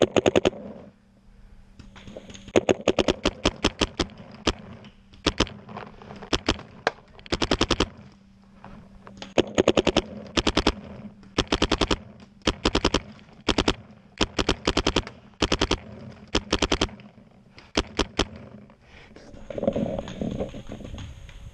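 Electronic paintball marker, a Bob Long G6R, firing short rapid strings of shots, about ten a second, burst after burst with brief pauses between. Near the end the firing stops and scuffing movement noise follows.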